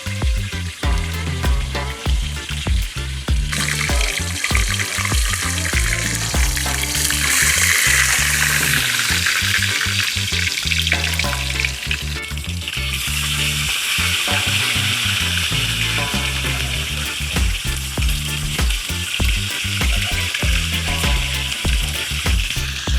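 Whole tilapia frying in hot oil in a pan, a steady sizzle that swells a few seconds in and is loudest about a third of the way through; the fish is frying on its second side after being turned. Background music with a steady bass beat plays underneath.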